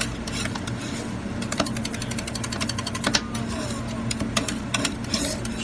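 Metal spatulas clicking and scraping against a frozen steel plate as ice cream is chopped and folded: a quick, irregular clatter of taps over a steady low hum.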